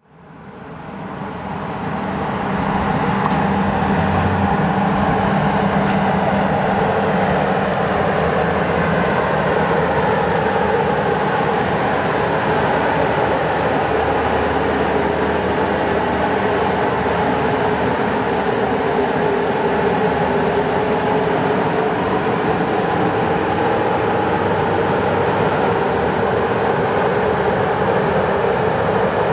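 HŽ Cargo electric locomotive running slowly past at close range: a steady mechanical hum with several held tones over rail and running noise, fading in over the first two seconds.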